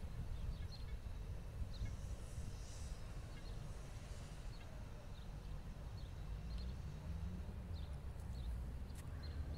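Wind buffeting the microphone as a fluctuating low rumble, with faint, scattered high bird chirps over it.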